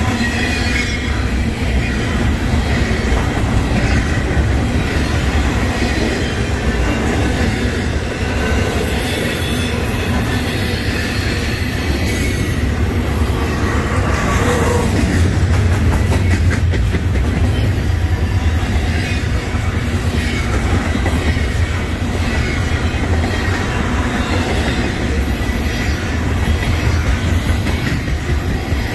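Double-stack intermodal well cars rolling past close by: a steady loud rumble and rattle of steel wheels on the rails. A thin, high wheel squeal comes and goes.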